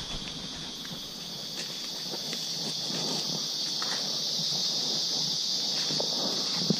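Steady high-pitched drone of a forest insect chorus, with irregular footsteps scuffing and crunching through leaf litter underneath and one sharper thump near the end.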